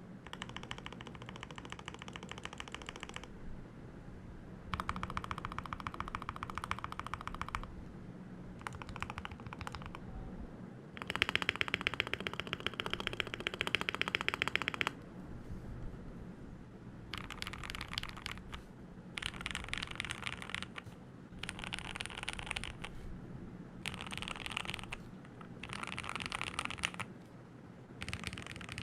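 Typing on a Keychron K2 V2 mechanical keyboard fitted with lubed Gateron Milky Yellow Pro linear switches and stock keycaps. The keystrokes come in bursts of rapid clicks with short pauses between them, and the longest, loudest run falls near the middle.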